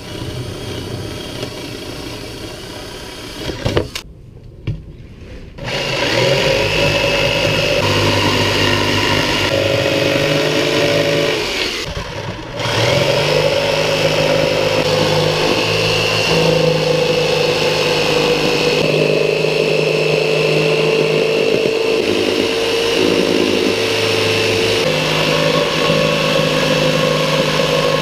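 A power drill boring a starter hole through plywood, then after a short pause a Black & Decker jigsaw cutting the plywood along a curved line, its motor running steadily with a brief let-up about twelve seconds in.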